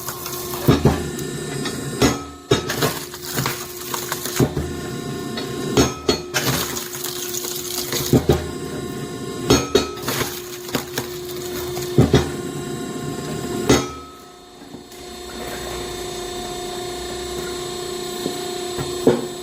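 Hydraulic log splitter with a cross-shaped splitting wedge working through green oak logs: a steady pump hum, with repeated sharp cracks and knocks as the wood splits, about every one to two seconds. The hum drops briefly about two-thirds of the way in, then runs steadily again.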